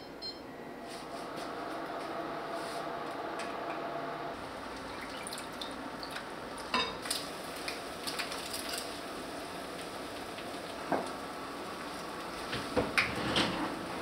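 Kitchen clinks and clicks over a steady hiss: a plastic ice cube tray twisted to free the cubes, and ice and dishes knocking against bowls. The sharp clicks are scattered, with a cluster a few seconds in and more near the end.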